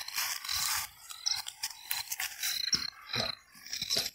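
Rustling and scraping of dry watermelon vines and plastic mulch film being brushed through, with scattered knocks of handling noise. Over it runs a steady series of short high chirps, about three a second.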